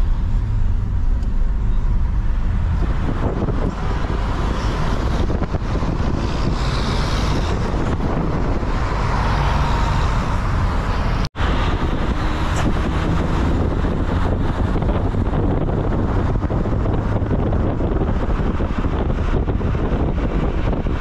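Road noise from a vehicle driving through city traffic: a steady low rumble with some wind on the microphone, broken by a split-second dropout about eleven seconds in.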